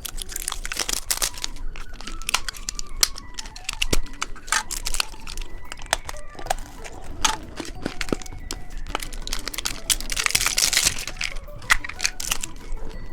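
Plastic candy wrappers crinkling and being torn open, with many irregular sharp crackles and a denser burst of crinkling near the end. Faint background music underneath.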